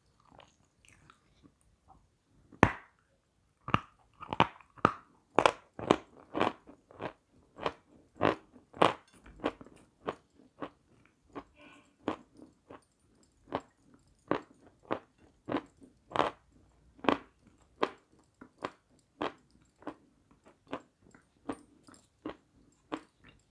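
Close-up chewing and crunching of a crisp white confection: a steady run of sharp crunches, about two a second, loudest in the middle stretch.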